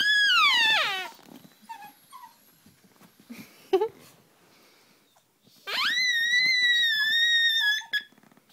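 Squeeze toy, a flamingo, giving long, wavering squeals twice: the first ends about a second in with a pitch that drops away, and the second starts with a rising squeal halfway through and holds for about two seconds. A sharp knock comes in between, near four seconds in.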